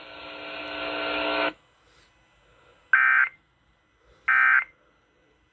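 Emergency Alert System end-of-message data bursts from a NOAA Weather Radio stream: two short, identical screeching digital bursts about 1.3 s apart, the signal that closes an alert broadcast. Before them, a buzzy tone grows louder and cuts off about a second and a half in.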